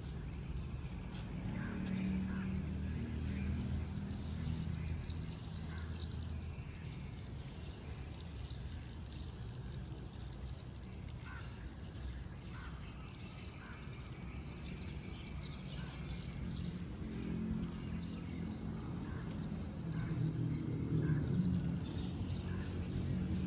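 Outdoor ambience: scattered short bird chirps over a steady low rumble that swells a little near the start and again near the end.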